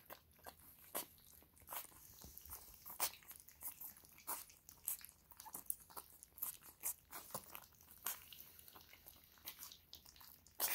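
A litter of puppies eating soaked puppy food from a shared pan: faint, irregular crunching and chewing clicks, several a second.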